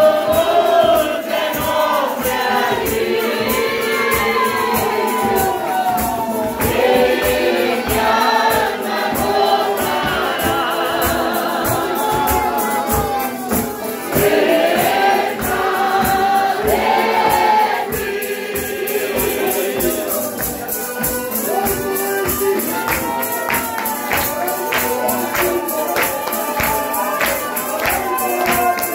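Congregation singing a Christian hymn together with a band, a tambourine keeping a steady beat that comes through more clearly near the end.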